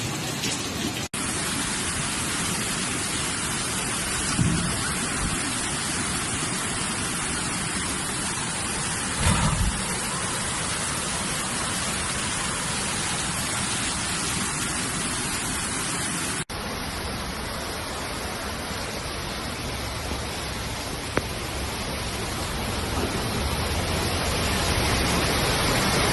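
Heavy rain with rushing floodwater, a steady loud hiss, with a couple of short low thumps and two brief dropouts.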